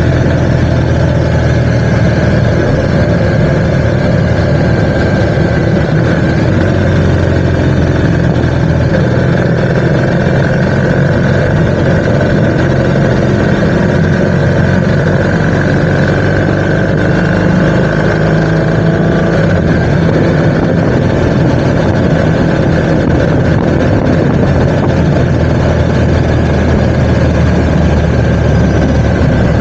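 Motorcycle engine running steadily under way, its pitch shifting a little partway through as the speed changes.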